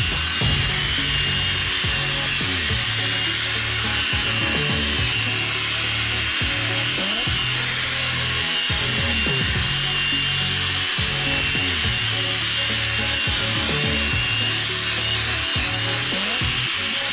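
An electric drill spinning a polishing pad against a plastic headlight lens, running continuously. Its pitch rises and falls as the speed and pressure change, and its low note briefly drops out every few seconds.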